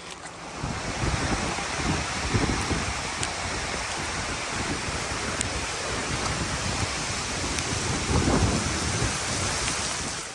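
Heavy storm rain pouring steadily, with gusting wind that rumbles in uneven surges and swells near the end.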